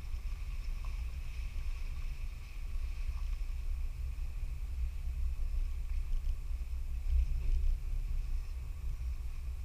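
Low, steady rumble of a 4x4 off-road vehicle driving a trail, with a faint steady whine above it.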